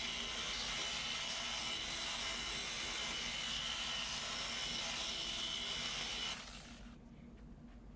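Electric polisher with a heavy wool pad running steadily against aircraft paint, a constant motor hum and whine, compounding off a high spot of ceramic coating. It stops about six and a half seconds in.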